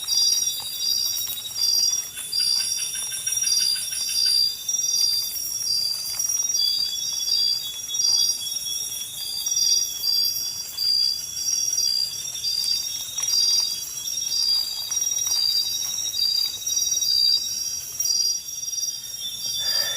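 Night insect chorus: high-pitched chirps repeating steadily, a little more than once a second, over a continuous high buzz.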